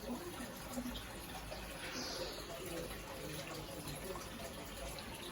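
Water running and trickling steadily in a fish tank, with a brief splashy hiss about two seconds in.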